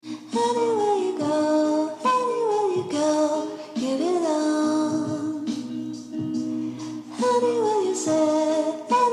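Music with a singing voice, in phrases that rise and fall in pitch.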